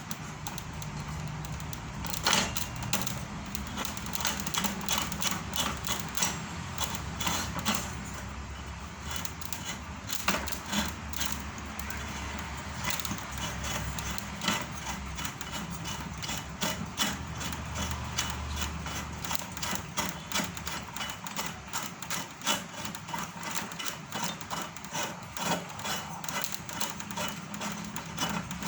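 Irregular clicks, knocks and rubbing of hand-handled parts of a meat-grinder-type feed pellet machine, over a steady low hum.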